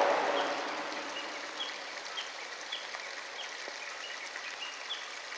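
Diesel railcar train fading away in the first second or so, leaving a steady outdoor hiss. A short high chirp repeats about twice a second.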